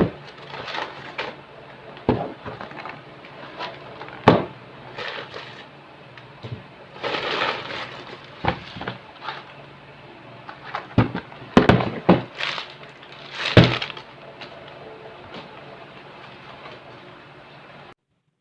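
Scattered knocks, clicks and clinks with short rustling swishes over a faint steady background, the sound of objects being handled. A few knocks are loud, about four seconds in and again between eleven and fourteen seconds.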